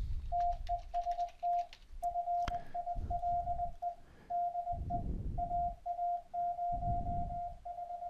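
Morse code (CW) tone at about 700 Hz, keyed in dots and dashes by the fldigi software and heard back through Mumble's server loopback, spelling out 'test file de aa0hw'.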